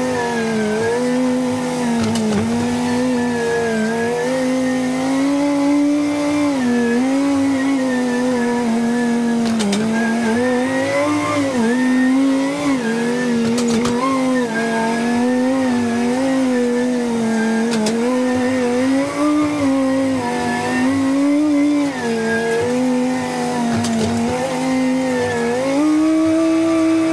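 Machine engine running under working load, a high whining tone whose pitch keeps rising and falling with the revs; it climbs higher near the end.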